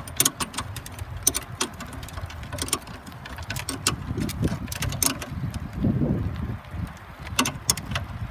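Wrench tightening a metal A/C line fitting: irregular metallic clicks and clinks from tool and fitting, several in quick succession in the first few seconds and again later, over a low rumble.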